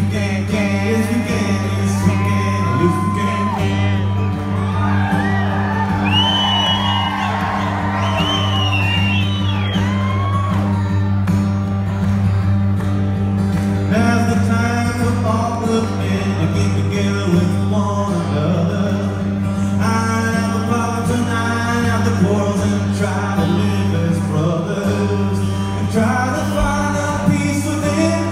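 Live solo performance: strummed acoustic guitar over a steady low drone, with wordless singing. From about four to eleven seconds in, high vocal wails slide up and down over the music.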